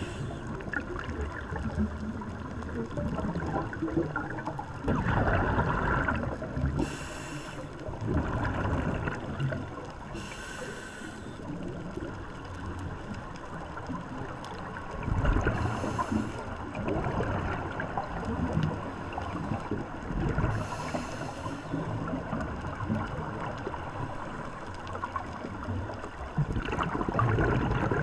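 Scuba diver breathing through a regulator underwater: a short hiss on each inhale and a gurgling rush of exhaled bubbles, repeating about every five seconds.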